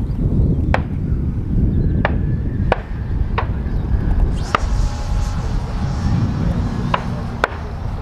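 Seven sharp gunshots from a gun club, spaced irregularly, over a steady wind rumble on the microphone.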